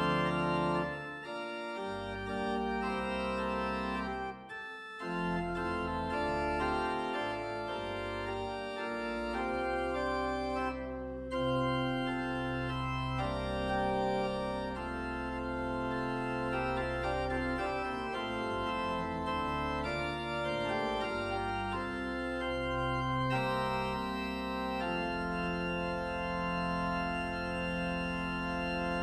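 Organ playing slow sustained chords over a deep pedal bass, the chords changing every second or two, with a brief break about four and a half seconds in.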